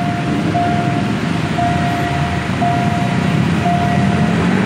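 Level-crossing warning signal sounding a steady tone about once a second, over the low rumble of traffic waiting at the crossing.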